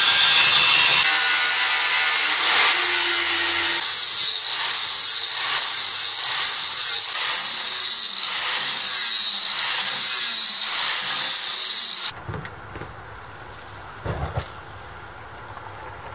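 Angle grinder grinding the steel head of a small forged axe clamped in a vise. From about four seconds in, the sound swells and dips about once a second as the disc is worked along the blade. It cuts off suddenly about twelve seconds in, leaving a much quieter stretch with a few soft low knocks.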